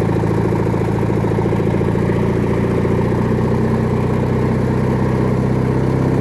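Briggs & Stratton opposed-twin engine of a White LT 1650 riding mower running steadily at a constant speed. It runs smoothly with really no unusual valve noise.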